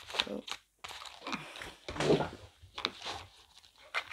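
Cards and paper being handled on a tabletop: irregular rustling and crinkling with short light clicks.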